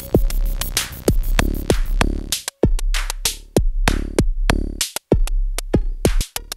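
Electronic synthesizer jam: a drum-machine beat of sharp hits with a deep kick. It starts under a held synth tone that drops out about two seconds in, leaving a sparser, choppy pattern of hits with short silent gaps between them.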